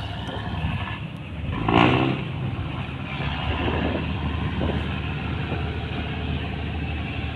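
Fishing boat engine running steadily with a low hum, and a brief shouted call about two seconds in.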